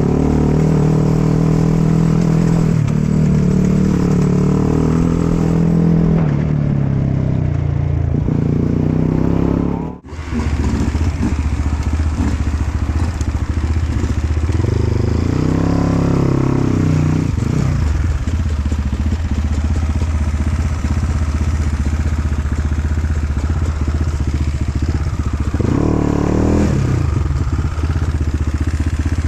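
Off-road dirt bike engine running loudly under a rider, its revs rising and falling as the bike works along a trail. About a third of the way in the sound drops out for a moment, then the engine runs on with several more rises in revs.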